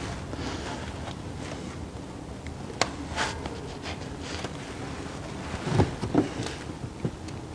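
Pliers handling spring hose clamps on the oil lines of a CVT's external oil filter. There is a sharp click a little under three seconds in, a few lighter clicks, and two louder knocks near six seconds, over steady background noise.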